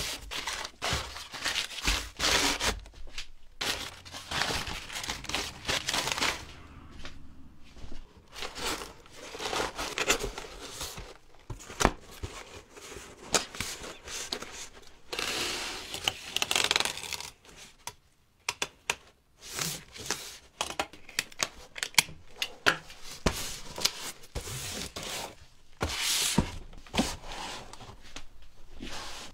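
Handling noise: uneven bursts of rustling and tearing, like paper or tape being worked by hand, with scattered light knocks.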